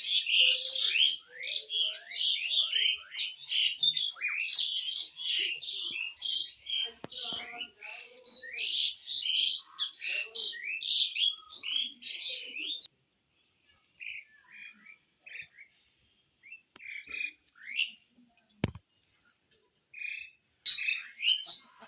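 Small birds chirping: a dense run of rapid, high chirps that thins out about halfway through into scattered calls with pauses, then picks up again near the end. A single brief thump about two-thirds of the way in.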